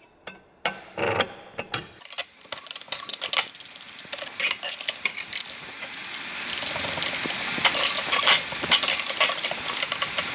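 Small metal clinks and rattles of a blade change on a rear-handle Makita 7-1/4-inch circular saw, as the saw's parts and steel blade are handled. A few separate clicks come first, then the clicking grows into a dense, busy rattle.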